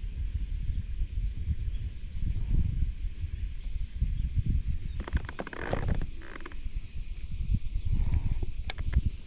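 Wind buffeting the microphone as an uneven low rumble, over a steady high drone of insects singing from the shore. A short clatter of clicks about five to six seconds in.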